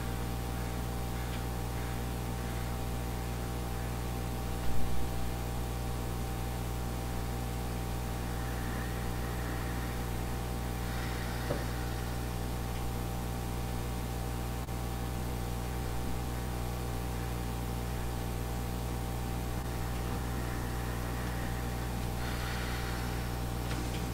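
Room tone of a silent pause: a steady electrical hum with faint hiss, broken by one short louder sound about five seconds in.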